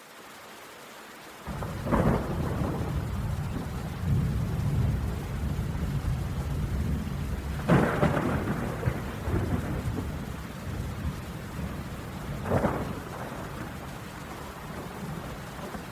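Thunderstorm: steady rain with rolling thunder that begins about a second and a half in, with three sharper thunderclaps cracking over the low rumble, the loudest near the middle.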